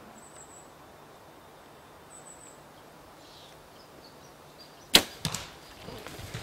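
A bow shot at a bull elk: quiet at first, then one sharp snap of the bow and arrow about five seconds in, followed by a couple of lighter clicks. After it comes the elk's hoofbeats and crashing as it runs off through the timber.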